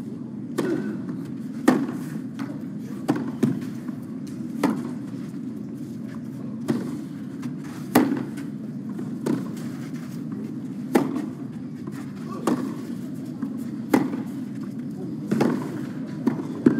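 Tennis ball struck back and forth by rackets in a long baseline rally on clay, a sharp pop about every second and a half, over the steady low hum of the crowd.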